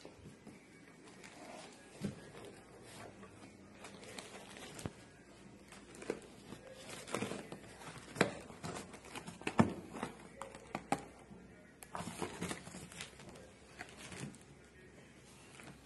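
Cardboard box being handled: the flaps rustle and crinkle, with irregular knocks and taps throughout. The sharpest knock comes a little past the middle.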